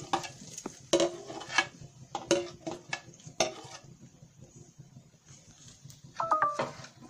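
Chopped green chillies being tipped off a plate into hot oil in a steel pot: a quick run of sharp knocks and clicks of the plate and utensil against the pot over the first three and a half seconds, with a faint sizzle of the oil. About six seconds in, a brief high-pitched call or tone sounds.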